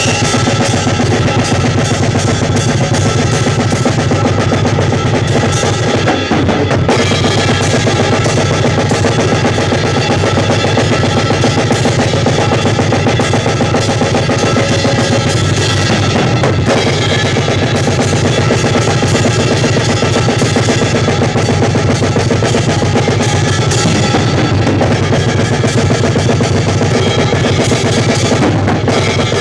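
A drum kit played loudly and without a break: bass drum, snare and cymbals, during a sound check.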